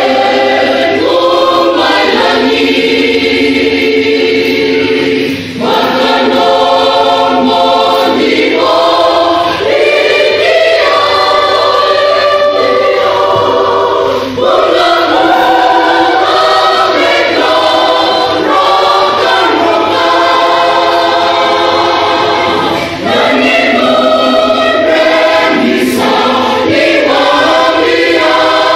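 Church choir of women, men and children singing a hymn together in parts, with short breaks between phrases about every nine seconds.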